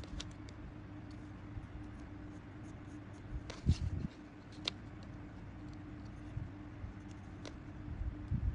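Card and a plastic set square handled on a table: a few light taps and rustles, the biggest cluster about three and a half seconds in, over a faint steady hum.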